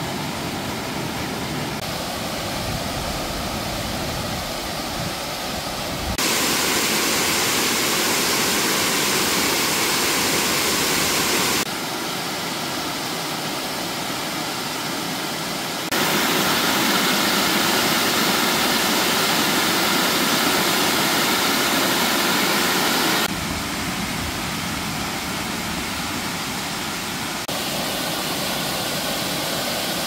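Mountain-stream water rushing over boulders and a small waterfall, a loud steady rush. It jumps abruptly louder and brighter or softer several times, about every four to seven seconds, as one stretch of falling water gives way to another.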